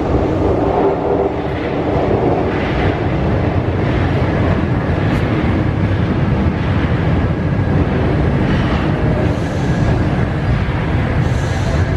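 Paris Métro Line 3 MF 67 train pulling into the station alongside the platform: a steady low rumble of wheels and traction motors, with a few faint clacks.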